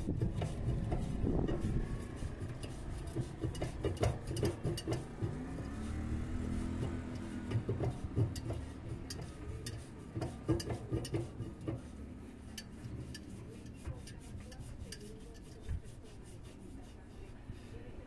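Metal clinking and scraping as a hexagonal tube socket wrench is worked by hand on the nut at the centre of a washing machine's tub, with irregular knocks and a low rumble underneath.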